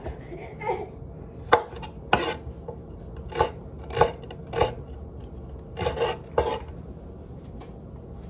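Kitchen knife chopping celery stalks on a wooden cutting board: about eight separate chops at an uneven pace, stopping a couple of seconds before the end.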